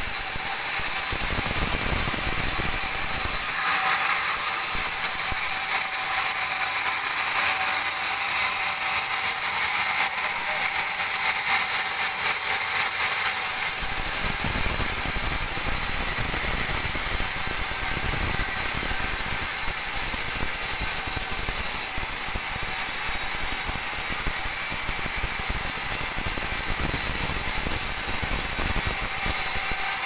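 Band sawmill cutting a squared teak log lengthwise: the saw runs steadily with a high-pitched sawing noise full of rapid ticking as the blade moves through the wood. A low rumble grows stronger about halfway through.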